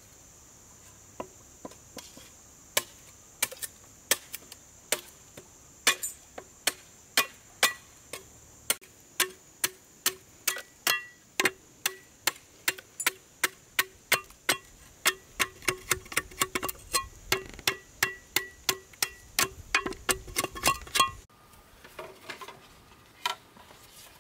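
Repeated sharp blows of a hand tool on something hard, each with a short ringing note. They start about one a second, then quicken to two or three a second for some fifteen seconds, then stop. A faint steady high hiss runs under the first few seconds.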